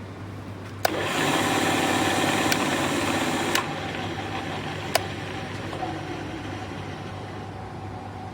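Radial drilling machine switched on with a sharp click about a second in, its motor and spindle running with a whirring hum that is loudest for the next few seconds and then settles to a steadier, quieter run. A few more sharp clicks sound over it.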